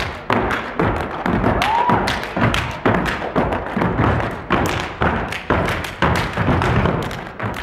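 Step team stomping and clapping in unison on a wooden stage floor: sharp, rhythmic stomps and claps, about two to three hits a second.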